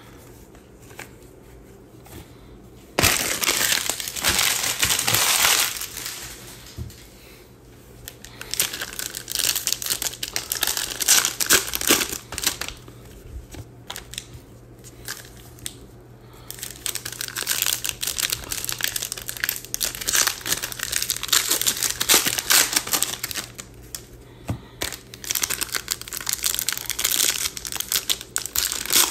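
Crinkly plastic wrapping being handled and crumpled by hand in several bouts of crackling, with short pauses between. The first bout starts suddenly about three seconds in.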